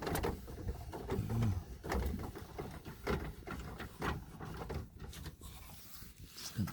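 Chevy Suburban's underbody spare-tire hoist being cranked with the jack handle and extension rods, clicking and rattling at irregular intervals as the cable lets the spare tire down.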